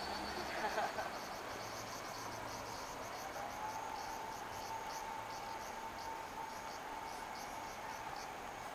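Night insects chirping in quick, evenly repeated pulses, over a steady background tone.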